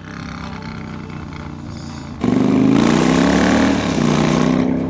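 Triumph Bonneville Bobber's 1200cc 270-degree parallel-twin engine, through its turnout exhaust, runs steadily at cruise. About two seconds in the throttle is rolled on: the exhaust note jumps much louder and rises in pitch as the bike accelerates, with a short dip near four seconds in before it climbs again.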